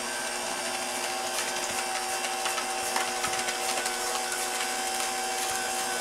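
Electric hand mixer running steadily at low speed, its beaters working through a thick batter in a stainless steel bowl: an even motor hum with a few faint clicks.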